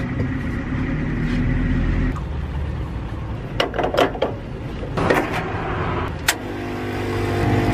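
Espresso machine being readied for a shot: a few sharp metal and glass clicks and knocks midway as the portafilter is locked into the group head and shot glasses are set on the drip tray. Near the end the machine's pump starts with a steady hum that gets louder as the shot begins.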